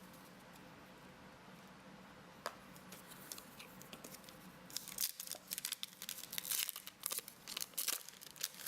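Pokémon booster pack's foil wrapper being torn open and crinkled, a rapid crackling and ripping that starts about five seconds in, after a quiet stretch with a single click.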